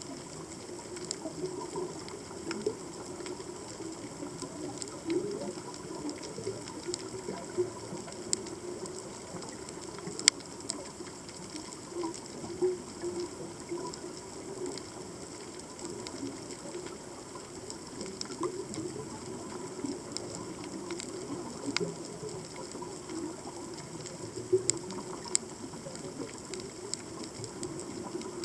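Underwater ambience picked up by a submerged camera: a steady watery hiss and low wash with scattered sharp clicks and crackles, and one louder snap about ten seconds in.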